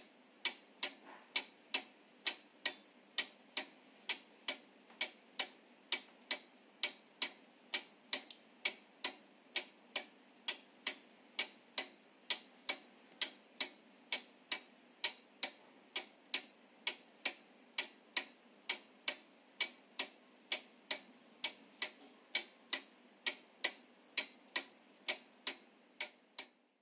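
Mechanical clock ticking steadily, about two sharp, even clicks a second. The ticks fade out at the very end.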